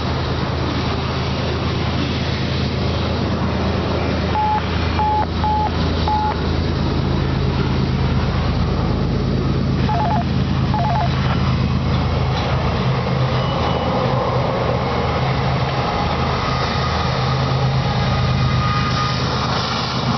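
Freight cars of a long train rolling past, covered hoppers and then intermodal container cars, with steady wheel and rail noise. Under it runs a constant low diesel drone from the approaching rear remote locomotive, a CP ES44AC. A few short high beeps sound about four to six seconds in and again around ten seconds.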